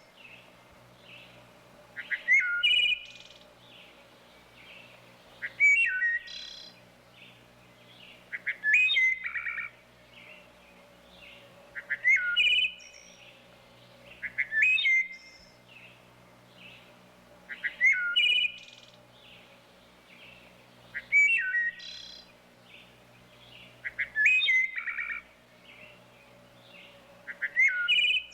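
Wood thrush singing: loud, clear song phrases repeated about every three seconds, nine in all, each ending in a higher, buzzier part, with fainter chirps between the phrases.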